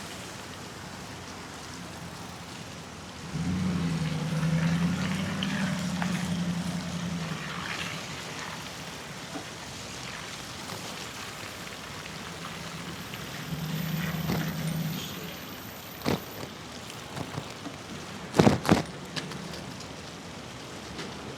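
Wet city street heard from a moving bicycle: a steady hiss of tyres on wet, slushy pavement. The hum of passing motor traffic swells twice, and near the end come a few sharp knocks, the loudest a quick double one.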